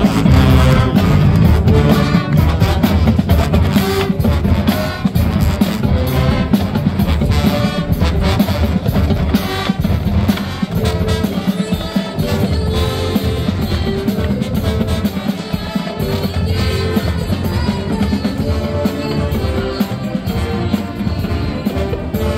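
Marching band playing, with a drum kit and bass drums keeping the beat under brass and keyboards.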